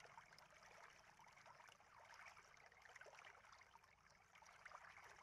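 Near silence: a faint, steady hiss after the music has ended.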